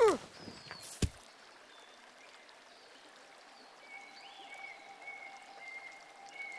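Outdoor ambience of a rocky creek: a faint, even hiss of running water, with a faint high repeated call from about four seconds in. It opens with the dying end of a heavy thud and a short falling tone, and a single sharp knock comes about a second in.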